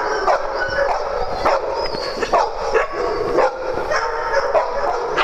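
Several dogs barking repeatedly during play, about two barks a second.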